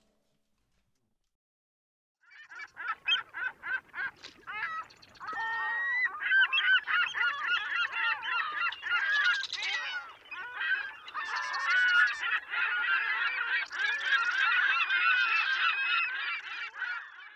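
A flock of geese honking: a few separate honks at first, then many overlapping calls.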